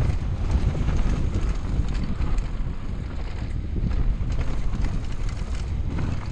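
Mountain bike speeding down a rough dirt downhill trail: wind buffets the microphone while the tyres crunch over the dirt and the bike rattles and knocks over the bumps.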